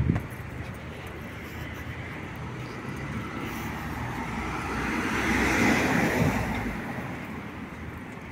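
A car driving past at low speed, its engine and tyre noise rising to a peak about six seconds in and then fading, over a low hum of street traffic. A short knock right at the start.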